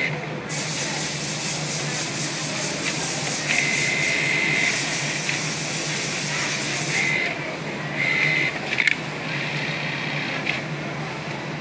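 ZOJE industrial sewing machine stitching a down jacket's zipper seam, running in stretches that stop and start, each with a high whine and hiss over a steady low motor hum.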